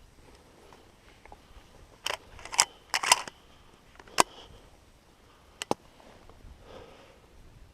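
A series of sharp mechanical clicks and clacks, about seven in all: a cluster between about two and three and a half seconds in, a single sharp one after four seconds, and a quick double click near the end.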